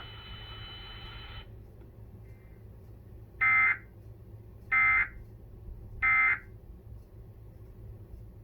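Emergency Alert System end-of-message signal: three identical short, harsh digital data bursts about a second apart. This is the SAME 'NNNN' code that closes the broadcast alert.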